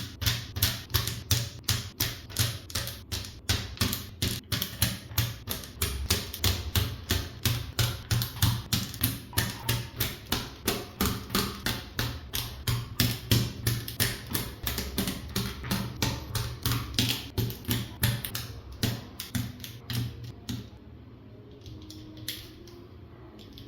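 Mechanical keyboard switches being swapped in a Gamakay K61's hot-swap sockets, a sharp plastic click about two or three times a second as each switch is seated or pulled, thinning out near the end.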